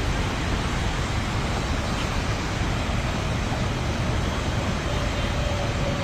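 Steady outdoor background noise: a low fluttering rumble under an even hiss, with a faint thin tone near the end.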